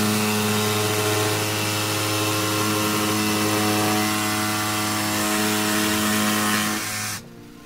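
Craftsman power tool running steadily while cutting a groove into two wooden supports tacked together, a steady motor hum with a high hiss of the cut; it stops abruptly about seven seconds in.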